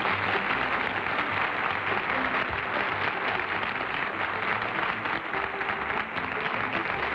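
Studio audience applauding steadily, with music playing softly underneath.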